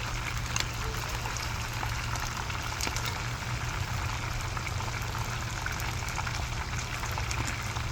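Whole parrot fish frying in hot oil: a steady sizzle with scattered small crackles, over a steady low hum.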